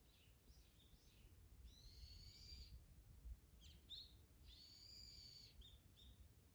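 A bird calling faintly: a few short high notes followed by a longer, harsher note about a second long, the phrase given twice.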